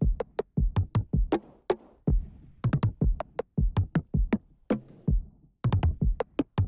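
Electronic background music with a drum-machine beat.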